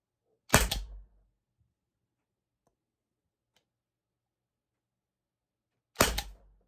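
Two shots from a Byrna LE CO2-powered less-lethal launcher, about five and a half seconds apart, each a sharp pop that trails off over about half a second.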